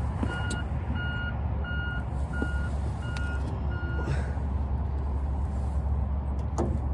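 A vehicle's reversing alarm beeps steadily, about one and a half beeps a second, and stops about four seconds in. A steady low rumble continues throughout.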